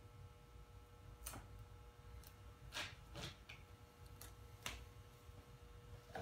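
Near silence: a few faint ticks and soft crackles from the dry-mount carbon-fibre vinyl film being handled and pressed onto the plastic panel, over a faint steady hum.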